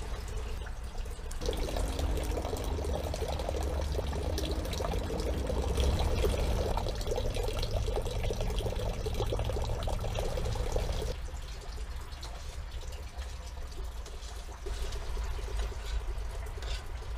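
Liquid bubbling in a pot on a camping stove, louder for about ten seconds from a second or so in, over a low steady rumble.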